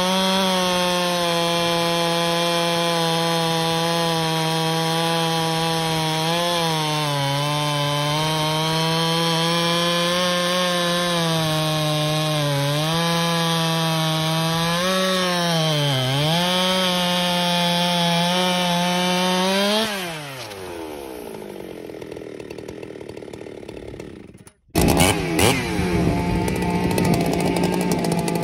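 Ported Husqvarna 395XP two-stroke chainsaw running at full throttle through a large ash log, its pitch dipping a few times as it loads up in the cut. About 20 seconds in, the cut ends and the engine falls away toward idle. After a brief drop-out, a second ported 395XP runs at full throttle near the end.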